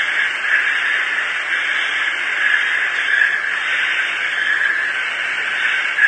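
Steady hiss of radio static, narrow and thin like an open radio channel with nobody talking.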